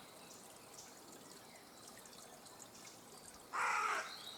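Carrion crow giving one harsh caw near the end, about half a second long, with faint small-bird chirps behind it.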